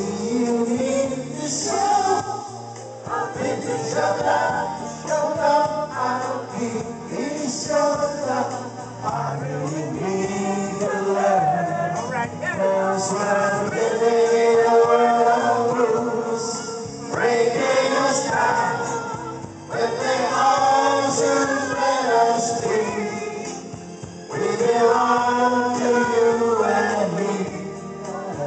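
Karaoke: a group of people singing together through handheld microphones over recorded backing music, with short breaks between phrases.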